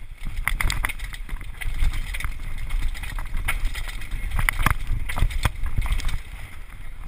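Bicycle ridden over stairs, rattling and clattering: an irregular run of sharp knocks as the wheels hit the steps, over a steady low rumble.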